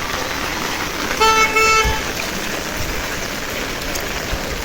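Heavy rain hissing steadily, with a vehicle horn tooting twice in quick succession about a second in.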